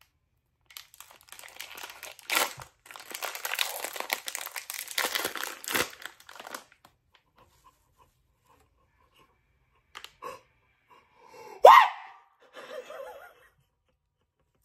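A toy blind-bag wrapper being torn open and crinkled by hand for several seconds. After a quiet pause, a short excited squeal of surprise about twelve seconds in, followed by a softer breathy laugh.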